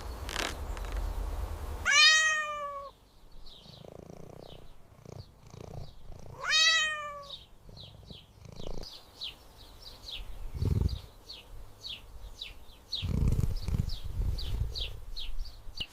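A cat meows twice in two long falling calls, then a run of short high chirps follows, mixed with a few soft low thuds.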